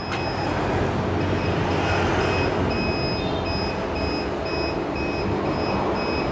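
Automatic AC refrigerant recovery and recharging machine beeping in a rapid series of short, evenly spaced high pips while it is being programmed, over a steady mechanical running noise.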